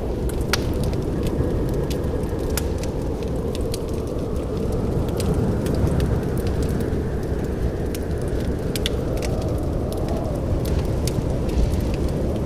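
Wood fire crackling in a fireplace: frequent sharp pops and snaps at irregular moments over a steady low rumble of burning.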